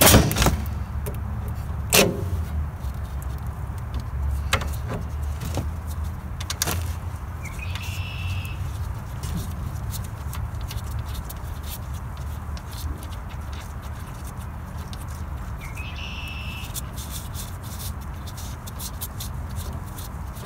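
Hand-fitting an air filter element onto a Honda GX160's air cleaner and turning its wing nut: a few knocks and light clicks, two short high squeaks, and a run of fine clicks near the end, over a steady low rumble.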